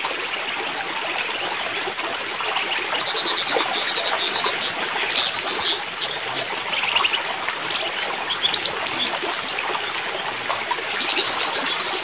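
Forest ambience: a steady wash like running water, with several bursts of rapid high-pitched trilling and a few short rising chirps from wild animals about the middle.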